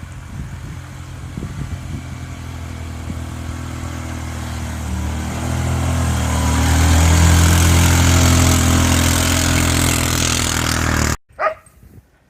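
A large motor vehicle's engine approaching and growing steadily louder, with a rushing hiss that rises alongside it, loudest about seven to ten seconds in, then cut off abruptly. A single dog bark follows just after the cut.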